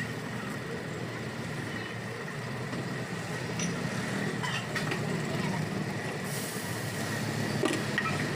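Steady street background noise: a low hum like passing or idling engines, with voices talking in the background, a faint steady high tone and a few light clicks and taps.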